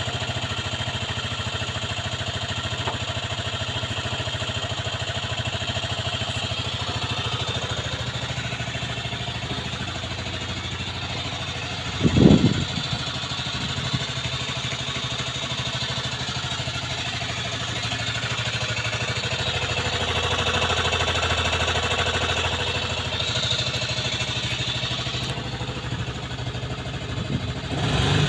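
Aprilia Leonardo 125 scooter engine running steadily at idle after a long time without being started, with a single short thump about twelve seconds in.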